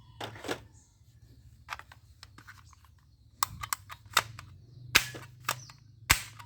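Irregular sharp plastic clicks and clacks of a toy gun being handled and worked, some single and some in quick clusters, over a steady low hum.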